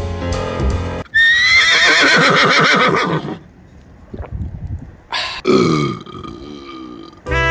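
A loud animal call with a quavering, trembling pitch lasting about two seconds, then a shorter second call that falls in pitch about five seconds in.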